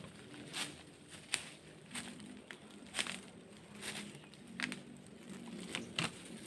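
Irregular crackling and crunching snaps, like dry leaves being handled or trodden, under a faint steady low drone of distant trail motorcycles.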